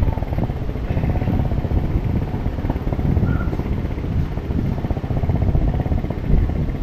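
Motorcycle engine running steadily under way, with a heavy low rumble of wind and road underneath.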